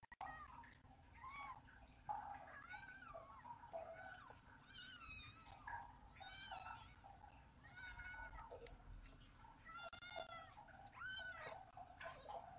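Newborn Ragdoll kittens mewing faintly while nursing: thin, high calls, roughly one a second, many rising and then falling in pitch.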